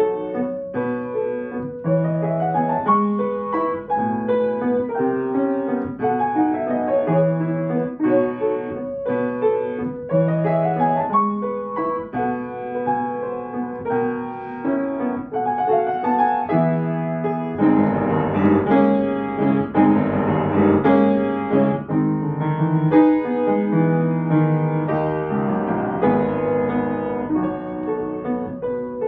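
Kawai upright piano played solo: a classical piece with a low bass note returning every couple of seconds under chords and running figures, getting fuller and denser a little past the middle.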